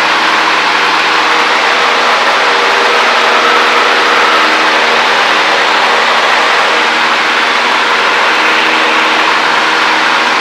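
Cessna 152's four-cylinder Lycoming O-235 piston engine and propeller running at a constant setting in flight, a loud, steady drone with hiss heard from inside the cabin.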